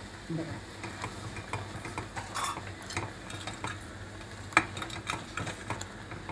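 A metal spoon stirring a thick buttermilk gravy in a steel pot, clinking and scraping irregularly against the pot, with one sharper clink about four and a half seconds in.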